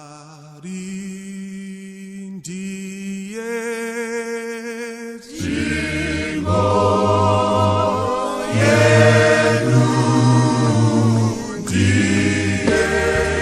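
Choral music: long held chords that step from note to note, then about five seconds in a fuller, louder passage with a low bass part joining.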